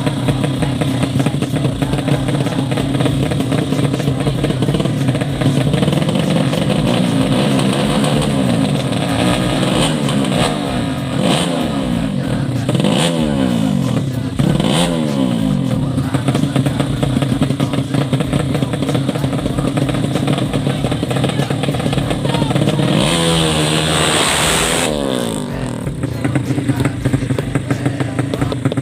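Drag-race underbone motorcycle engines idling, with a few sharp throttle blips between about 11 and 15 seconds in. About two-thirds of the way through, a bike revs hard and accelerates away.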